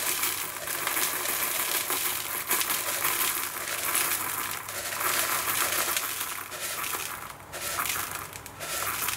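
Magnesium chloride flakes pouring from a plastic tub into a plastic bowl: a continuous dry rattle of crystals sliding and striking plastic. The flow thins briefly about seven and a half seconds in, then picks up again.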